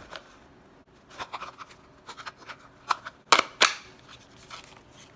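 Sharp plastic clicks and small knocks as a new LG washer drain pump is pushed and snapped into its white plastic housing by hand, the two loudest clicks coming a little past the middle.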